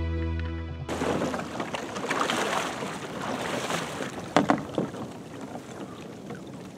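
Background music cuts off about a second in, giving way to wind on the microphone and water sloshing as a hunter works a low boat through shallow, icy water, with a few sharp knocks a little past the middle.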